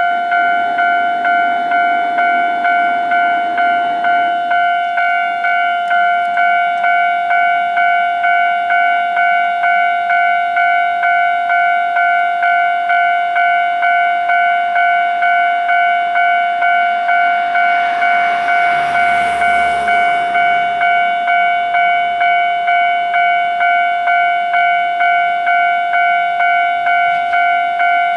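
Japanese railway level-crossing warning bell ringing with a steady, evenly repeated electronic ding, signalling that a train is approaching. A low rumble swells and fades about 18 to 21 seconds in.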